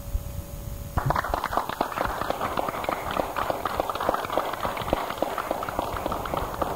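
Dense, rapid clattering of many small knocks, starting about a second in and keeping on without a break.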